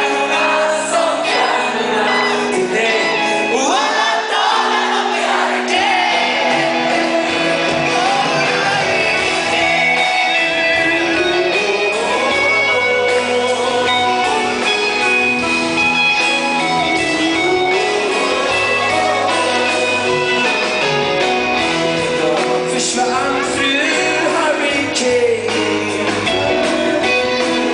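Live rock band playing, with a man singing lead over electric guitar, heard from among the audience in a large hall.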